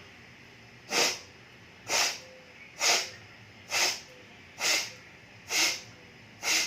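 Seven sharp, forceful breaths blown out through one nostril, about one a second: bhastrika nasal exhalations clearing the water from the nasal passage after jal neti (saline nasal rinsing).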